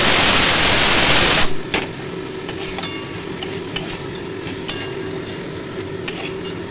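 A pressure cooker hissing loudly as it vents steam, cutting off about a second and a half in. Then a spatula scrapes and clicks against an aluminium kadai, stirring frying onions and tomatoes over a light sizzle.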